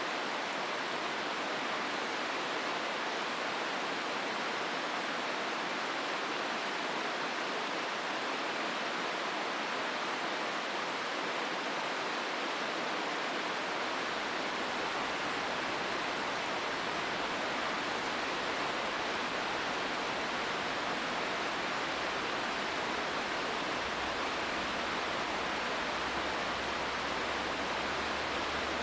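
Steady rushing of river water through a rocky gorge, an even, unbroken hiss. A faint low rumble joins in about halfway through.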